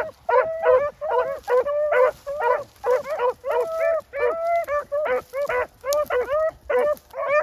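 Several rabbit hounds baying on a trail, in full cry: quick repeated bays, about three a second, overlapping and mixed with a few longer drawn-out bawls.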